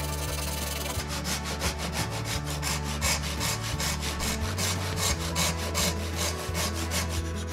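Hand saw cutting through a hardwood handle blank clamped in a vise: quick, evenly repeated back-and-forth strokes, starting about a second in.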